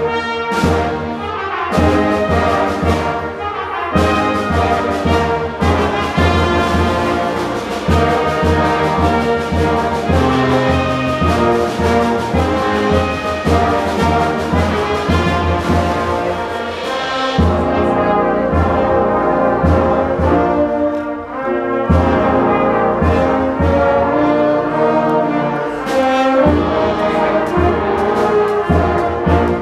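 Brass marching band playing a film-theme medley: trumpets, trombones and tubas over a steady percussion beat.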